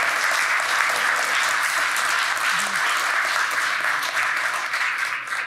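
Audience applause: many people clapping steadily, easing off near the end.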